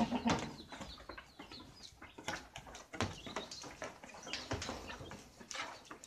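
Goat shed sounds: goats' hooves knocking irregularly on the slatted floor, with small birds chirping, loudest right at the start.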